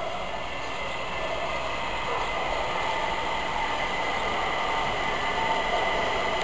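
Train approaching along the track, its running noise growing steadily louder as it nears.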